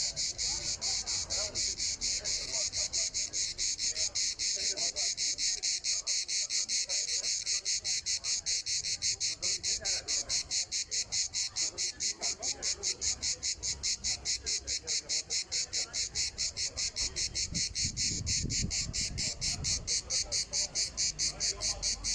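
Cricket chirping steadily, a regular run of about four to five short high chirps a second.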